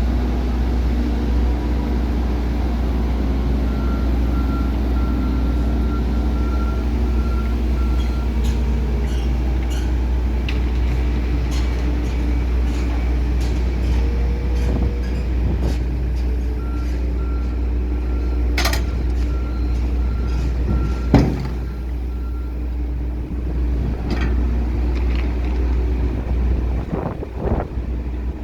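Truck reversing alarm beeping in two spells over a steady low engine rumble, during quayside unloading of bulk wheat from a cargo ship into trucks. Scattered clanks and a short hiss, with a loud bang about 21 seconds in.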